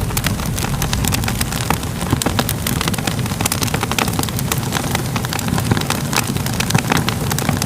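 Fire crackling: dense, irregular pops and snaps over a steady low rumble.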